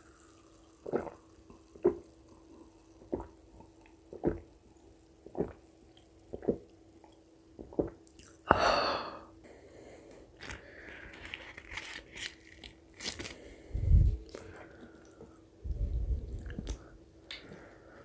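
Close-miked chewing of chicken curry and puri, with wet mouth smacks about once a second. About halfway through comes a longer noisy stretch, and a few dull low thumps follow near the end.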